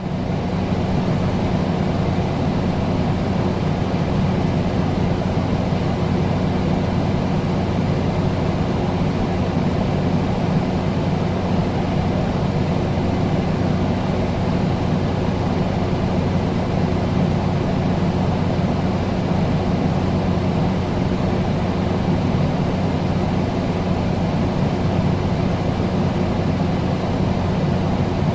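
Air conditioner running steadily: a constant whooshing airflow over a low electrical hum.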